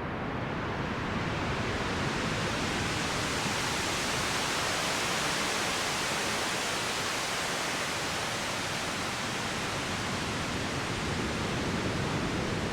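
Synthesized ocean wave made from filtered noise in a VCV Rack patch. The hiss swells up over the first couple of seconds, is fullest midway, then slowly ebbs, with a low rumble underneath.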